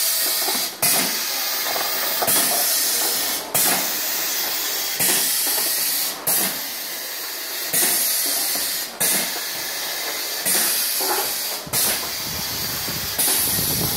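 Pneumatic piston filling machine cycling, its air cylinders hissing steadily with a sharp exhaust puff repeating about every second and a half.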